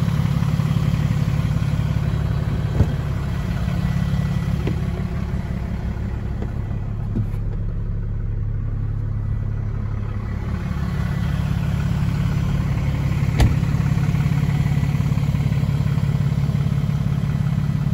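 The 6.7-litre Cummins straight-six turbo diesel of a Ram 5500 tow truck idling steadily with a low, even drone. Midway through it sounds duller for a few seconds. There are two sharp knocks, one about three seconds in and one near thirteen seconds.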